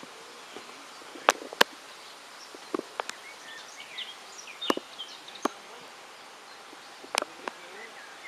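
Scattered sharp knocks and clicks, about half a dozen, from gear being handled and someone stepping down into a small fishing boat moored at a wooden jetty. Faint chirping in the background, most of it around the middle.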